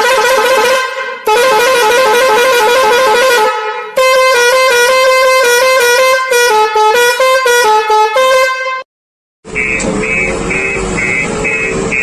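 A musical vehicle horn sounding in long blasts, first wavering in pitch and then playing a tune of short stepping notes; it stops abruptly near the end, and after a brief silence music with a regular beat starts.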